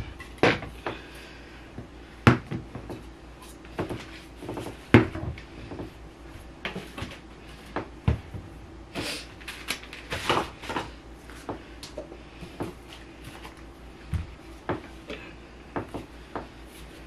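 Plastic cleaning-product bottles and spray bottles being picked up and set down on a floor, making irregular knocks and clunks, the loudest about two and five seconds in. A stretch of rustling about nine seconds in.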